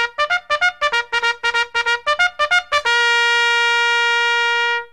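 Music: a trumpet-like fanfare of rapid short notes, which about three seconds in settles on one long held note that cuts off suddenly just before the end.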